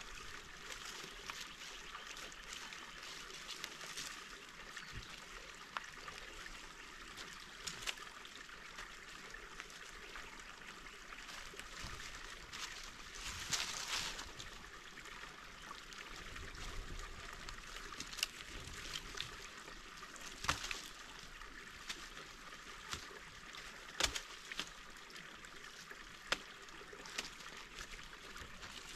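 Dry leaves and twigs rustling and crunching as a rope is dragged and laid out across a leaf-covered forest floor, with sharp cracks now and then, over a steady background hiss.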